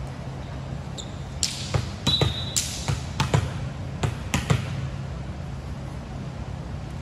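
A volleyball bouncing on a hardwood gym floor about ten times between roughly one and a half and four and a half seconds in, with a couple of short sneaker squeaks. A steady low hum runs under it.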